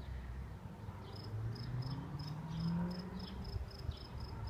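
Cricket chirping in short, even pulses, about three a second, starting about a second in. Underneath, a low hum slowly rises in pitch for a couple of seconds midway.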